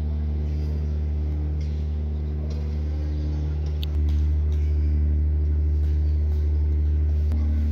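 Steady low mechanical hum of a running motor, a little louder from about four seconds in.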